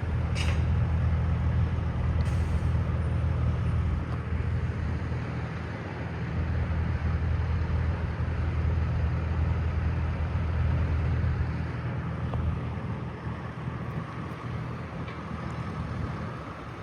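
A motor vehicle's engine running steadily with a low hum that swells and eases slightly, with faint clicks about half a second and about two seconds in.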